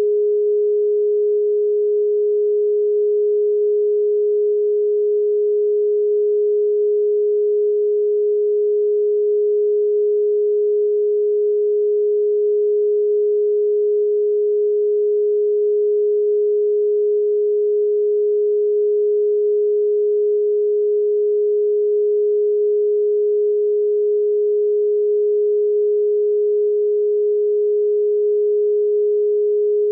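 A single pure sine tone, a solfeggio meditation tone, held at one pitch and level without change.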